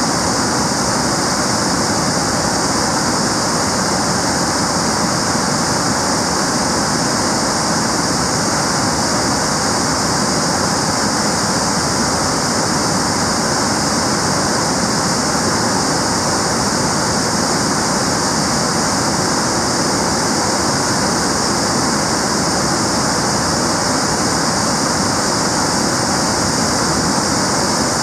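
Great Falls of the Potomac River: whitewater rushing over rocky falls and rapids, a loud, steady, unbroken rush of water.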